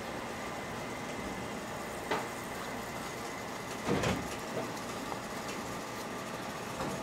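Steady hiss and hum of cooking at a street toast stall's griddle, broken by a few sharp knocks and clinks of utensils. The loudest is a double knock about four seconds in.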